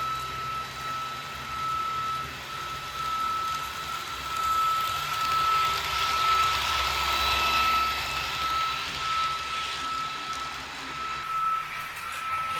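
Märklin ICE 4 model train running, a steady high whine with a rushing noise that swells about halfway through and eases off.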